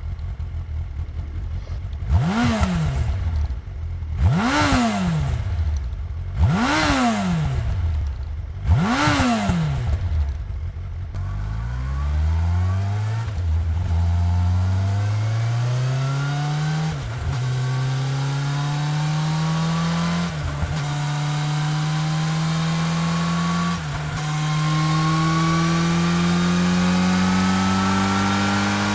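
First-generation Suzuki Hayabusa's 1,299 cc inline-four engine idling, then revved four times in quick blips. It then pulls away under acceleration, its pitch rising steadily through the gears, with three brief dips as it upshifts.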